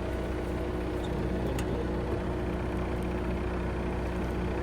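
Toyota Tacoma pickup's engine idling with a steady, even hum.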